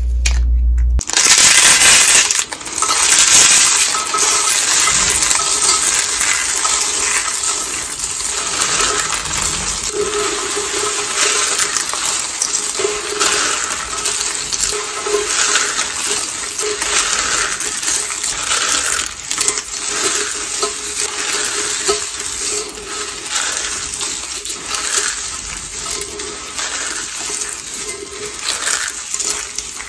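Dried soap being crushed, a continuous crisp crunching and crackling made of many small sharp cracks, starting about a second in.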